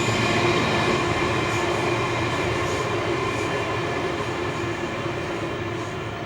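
Suburban electric train running past, a steady rail noise with several held whining tones that slowly fades toward the end.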